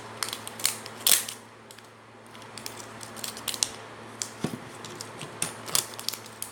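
Toy packaging being handled: irregular sharp crinkles and clicks of wrappers and plastic pieces, with the loudest about a second in.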